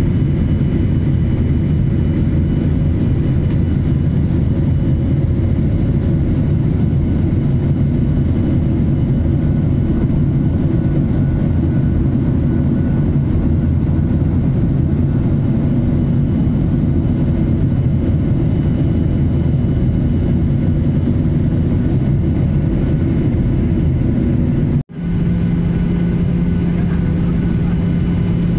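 Steady low roar of jet airliner cabin noise, engines and rushing air, heard from a window seat over the wing. About 25 s in the sound breaks off for an instant and returns with an added steady hum.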